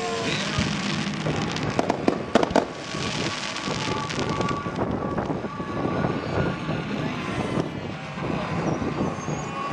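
Firework pyrotechnics banging and crackling, with a cluster of sharp bangs about two to two and a half seconds in, over a steady thin whine.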